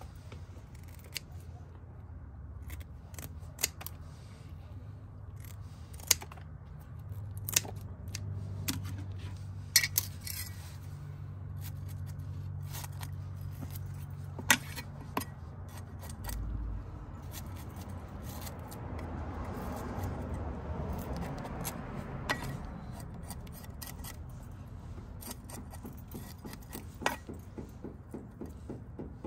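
Kitchen shears snipping and a cleaver scraping scales off a bluegill on a wooden stump, with scattered sharp clicks and taps.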